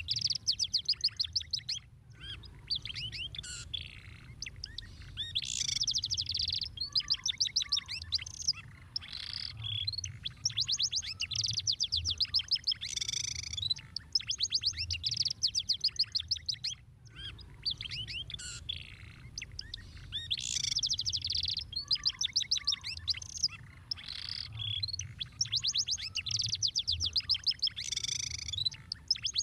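Domestic canary singing a long song of very fast trills and rolls, phrase after phrase, with short breaks twice.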